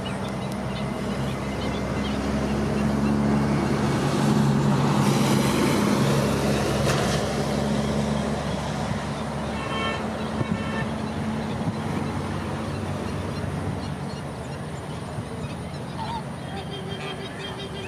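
A steady low engine rumble from passing traffic swells to its loudest a few seconds in, then fades. Over it, a flamingo flock gives short goose-like honking calls, about ten seconds in and again near the end.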